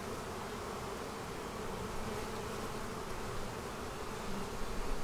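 Steady buzzing hum of a honeybee colony on an opened hive's frames.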